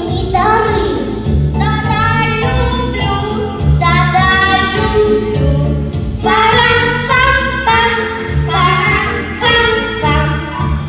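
A child singing a children's autumn song over a recorded backing track with a steady, pulsing bass.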